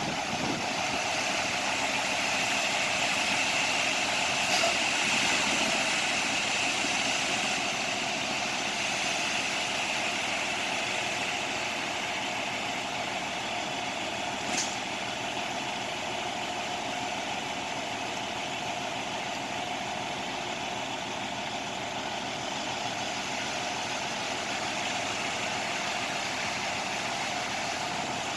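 A concrete truck's engine running steadily at a concrete pour, with two short sharp clicks, one about four seconds in and another about ten seconds later.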